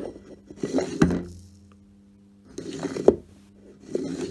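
Handling noise at the pipe outlet: three short rustling scrapes, each ending in a sharp tap, over a faint steady hum.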